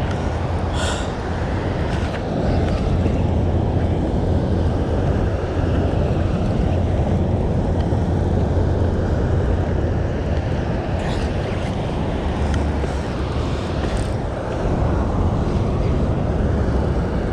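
Steady, deep roar of water rushing out of a dam's open spillway gates and churning through the tailwater.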